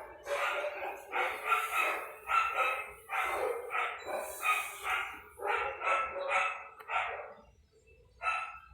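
A dog barking over and over, about two barks a second, with a short pause near the end.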